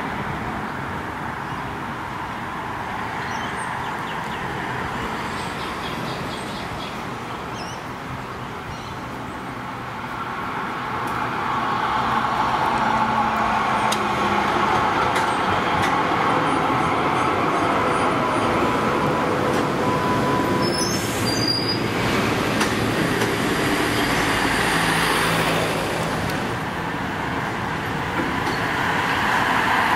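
Road traffic running, then a B2-class articulated tram rolling up on the rails and passing close by, growing louder from about ten seconds in, with a faint steady whine.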